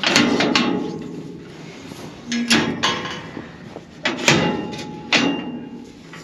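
Steel livestock trailer gate and latch being worked open: a series of sharp metal clanks and rattles, several of them ringing briefly.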